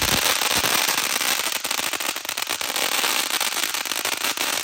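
Consumer firework going off with a continuous, dense crackle of rapid small pops over a steady hiss.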